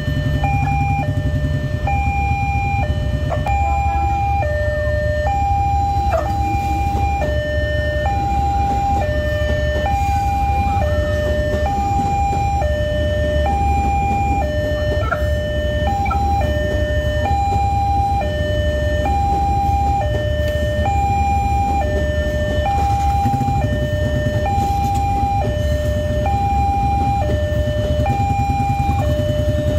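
Railway level-crossing warning alarm sounding its two-tone signal, a higher and a lower tone alternating in a steady repeating pattern, while an electric commuter train rumbles past the crossing.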